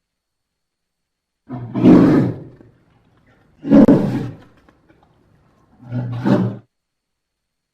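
Polar bear roaring three times, each roar about a second long and about two seconds apart.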